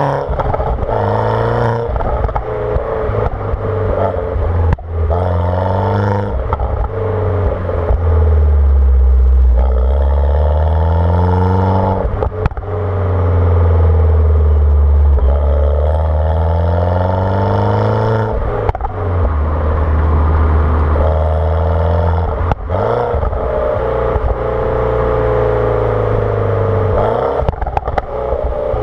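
Mini Cooper S's turbocharged 1.6-litre four-cylinder N14 engine, with JCW tuning, JCW exhaust and no catalytic converter, pulling hard through the gears. The pitch climbs and drops again at each shift, and the exhaust gives short cracks and pops at several of the shifts.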